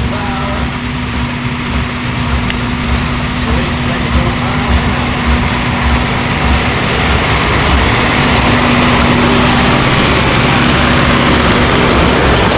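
A 1974 Case tractor's engine running steadily under load as it pulls a New Holland 5070 square baler and a Kuhn bale accumulator, with the baler's machinery clattering along. It gets louder as the rig draws close, then holds steady.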